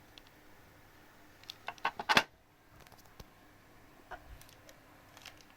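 Keystrokes on a Dactyl Manuform 5x6 split keyboard with Gateron Black linear switches: a quick run of key presses about two seconds in, the last of them the loudest, then a few scattered single presses.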